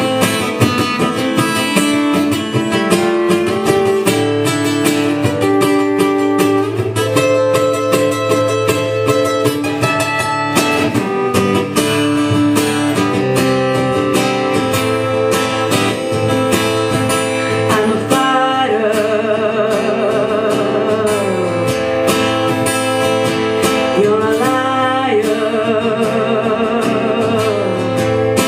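Live music: an acoustic guitar strummed and picked, with a voice singing long, wavering held notes over it from about two-thirds of the way in.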